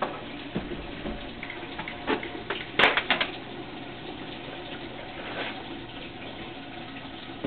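Washing machine filling with water, a steady rush. A quick run of sharp knocks about three seconds in.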